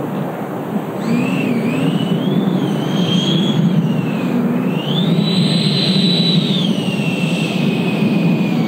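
JETFAN-130 electric ducted fan of a large RC jet whining at low throttle over a steady rush of air as the model rolls on grass. The whine wavers, rises in pitch about five seconds in, holds, then drops back.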